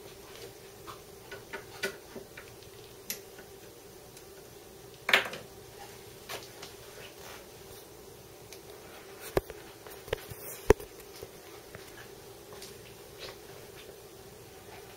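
Scattered clicks and knocks of small metal machine parts being handled on a workbench, with a louder knock about five seconds in and a few sharp clicks a little past the middle, over a faint steady hum.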